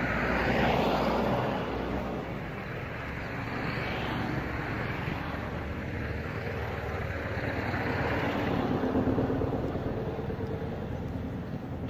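Motor vehicles passing on a nearby road: a broad traffic sound swells and fades three times, near the start, about four seconds in and about nine seconds in, with an engine hum in the last pass.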